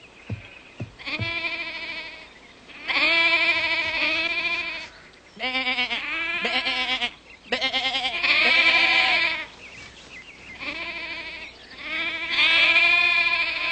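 A cartoon voice making a series of drawn-out, wavering, bleat-like cries, about five of them, each lasting a second or two. A few short knocks sound in the first second.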